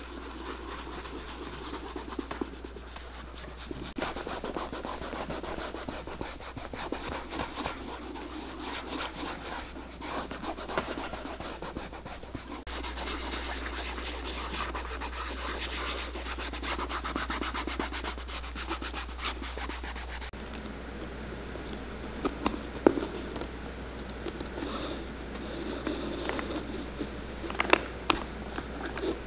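A cloth rubs wax polish into the smooth black leather of a Dr. Martens boot in quick, repeated strokes. A few sharp clicks come near the end.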